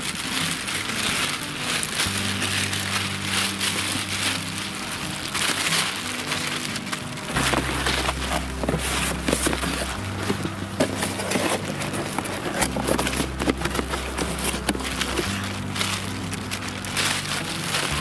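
Background music with slow, steady bass notes changing every few seconds, over an irregular crackling of a fire just being lit.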